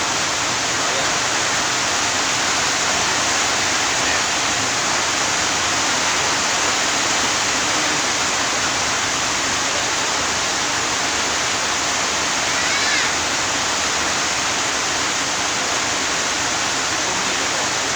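Steady, even rushing hiss with no change in level, like running water or a fan close to the microphone.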